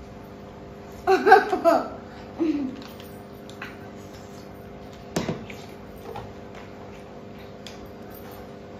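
A child's short giggling laugh about a second in, with a second brief laugh just after, over a faint steady background tone; a single sharp knock a little past halfway.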